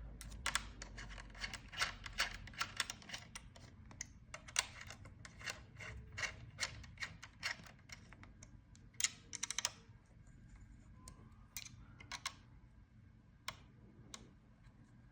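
Craftsman CMCN616 16-gauge 20V cordless nailer cycled over and over with no nails loaded: a quick run of light, sharp clicks that thins out to a few scattered clicks after about eight seconds. The tool cycling normally shows that the two-flashing-lights fault is cleared.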